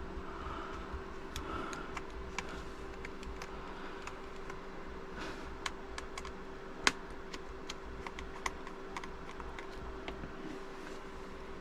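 Small screwdriver backing tiny screws out of a laptop's screen assembly: scattered light clicks and ticks of metal on metal and screws being handled, with one sharper click about seven seconds in. A steady low hum runs underneath.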